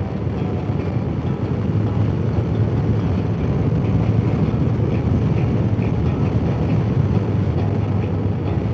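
Touring motorcycle cruising steadily at road speed: a low, steady engine drone mixed with wind rushing over the microphone, getting a little louder about two seconds in.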